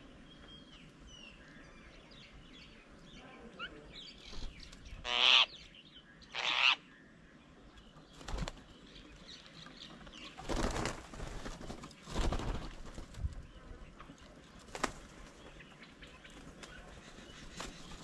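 Birds' wings flapping as they fly onto and off a bird table, in two loud bursts about five and six and a half seconds in and a few softer flurries later, with faint bird chirps before them.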